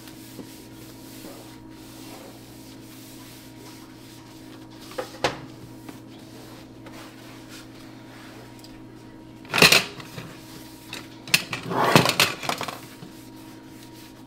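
Kitchen counter being cleaned with a trigger spray bottle and cloth: a couple of light knocks about five seconds in, a short loud spray-like burst near ten seconds, and about a second of rubbing and handling noise near the end.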